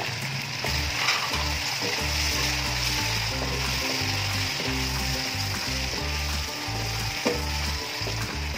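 Oil sizzling steadily in a stainless steel pot as sliced tomatoes are stirred into fried onions with a wooden spatula, with background music underneath.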